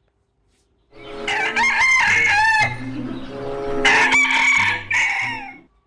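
A recorded chicken sound: a rooster crowing twice, each call long and wavering, nearly two seconds.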